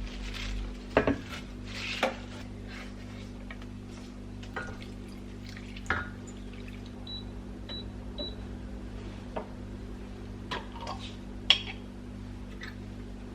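Kitchen work: dishes and utensils clinking and knocking now and then over a steady low appliance hum, with three short high electronic beeps from a kitchen appliance about halfway through.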